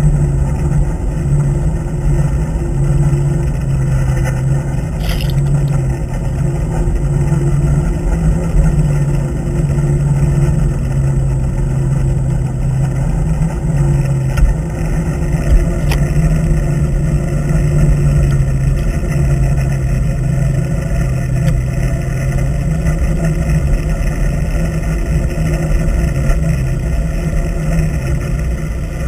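A trolling sportfishing boat's engine and propeller running as a steady low hum, heard underwater through a GoPro's waterproof housing over a steady rush of water noise.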